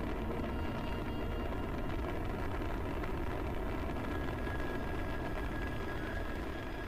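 Sci-fi spaceship engine sound effect: a steady, noisy rumble with a few faint held tones over it.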